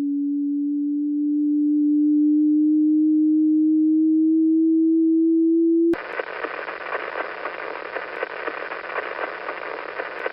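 Space recordings converted to sound: a single pure tone that rises slowly in pitch for about six seconds, then cuts abruptly to a crackling, static-like hiss with a faint low hum underneath.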